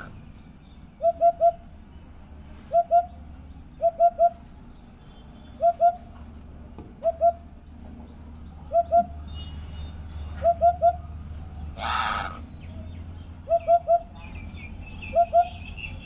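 Hoopoe singing its 'hoop-hoop' song: short low hoots in groups of two or three, a group about every second and a half. About twelve seconds in, a brief loud rustling burst.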